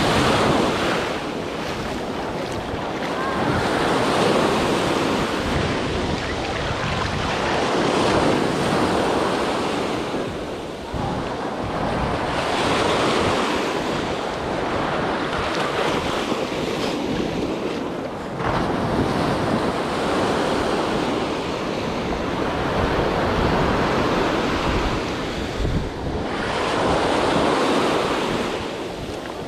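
Ocean surf breaking and washing up the beach, swelling and fading every four seconds or so, with wind buffeting the microphone.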